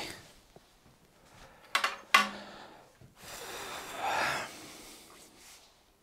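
A man's breathing: two sharp, noisy snorts or gasps about two seconds in, then a long breathy exhale like a sigh.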